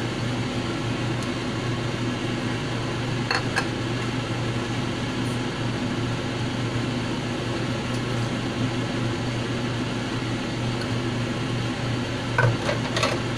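Steady low fan-like hum from a kitchen cooking appliance, with light metal clinks from a wire-mesh strainer against a saucepan about three seconds in and again a few times near the end.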